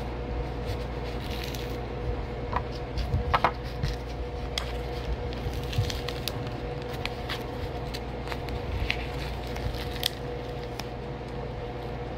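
Paper cornstarch package crinkling and tearing as it is pried open and squeezed by hand, with irregular crackles and sharper snaps, over a steady low hum.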